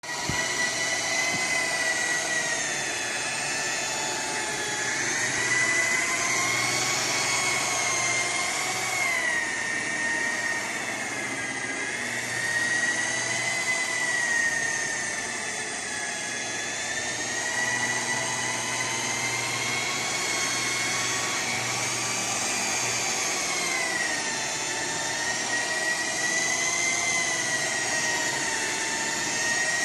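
Handheld electric rotary polisher running with its buffing pad on car paintwork, machine-polishing the paint. It gives a steady motor whine whose pitch drifts slowly up and down.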